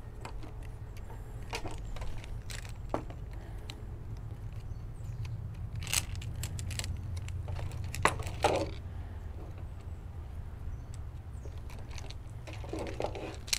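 Coiled high-pressure hose being unwrapped and handled, with scattered light clicks and rustles as its ties come off and its metal end fitting knocks about. A low steady hum runs underneath.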